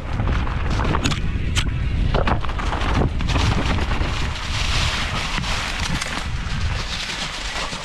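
Wind buffeting the microphone over the rumble of a mountain bike rolling fast down a dirt trail, with scattered knocks and rattles from the bike.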